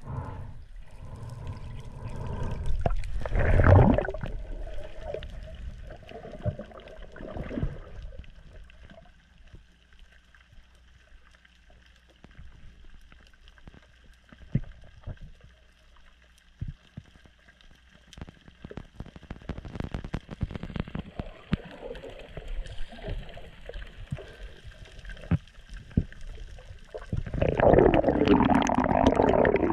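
Underwater sound picked up by a submerged camera as a freediver swims down: muffled water movement and bubbling, then a quieter stretch with scattered clicks and crackles. Loud bubbling and churning water come in near the end as the diver rises close to the camera.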